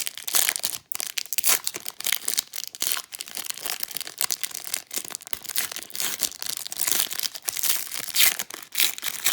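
A foil trading-card pack being torn open and its wrapper crinkled and crumpled by hand, a dense run of irregular crackles and rips.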